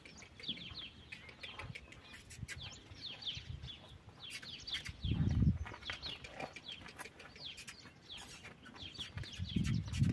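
Small birds chirping in quick, repeated falling chirps, with two short low rumbles about five seconds in and near the end.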